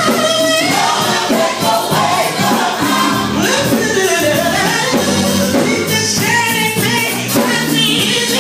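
Loud gospel music with several voices singing, their pitch sliding over a steady accompaniment.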